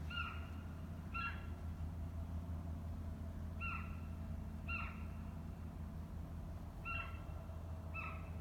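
Ezo sika deer calling: six short, high whistles in three pairs, the two of each pair about a second apart, each whistle dropping in pitch at its end. A steady low hum runs underneath.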